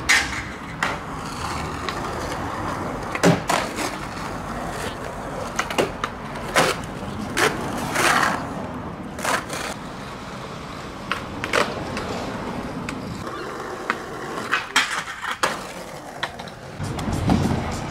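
Skateboard wheels rolling, with a dozen or so sharp pops and clacks of the board from tricks and landings. A louder low rumble swells near the end.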